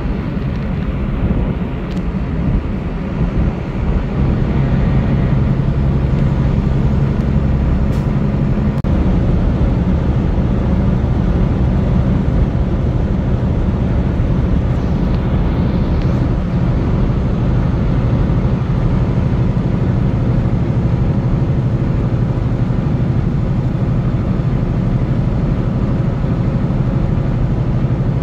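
Steady low drone of engine and tyre noise from a vehicle cruising at highway speed, heard from inside the cab.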